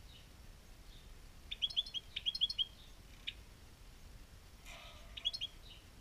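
European goldfinch singing short bursts of quick, high notes: two bursts a little over a second in and around two seconds in, a single note after them, then one more short burst near the end. Just before that last burst there is a brief rustle.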